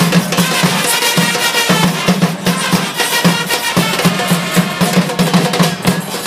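A supporters' band of trumpets and bass drums playing a terrace chant, the drums beating a fast, steady rhythm under the brass.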